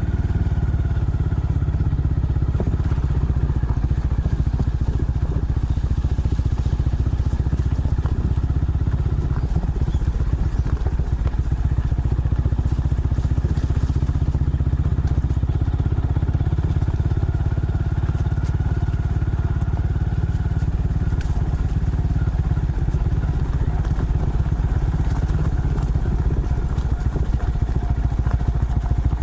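Honda Monkey mini motorcycle's single-cylinder four-stroke engine running steadily under way, heard from the bike, with a heavy low rumble.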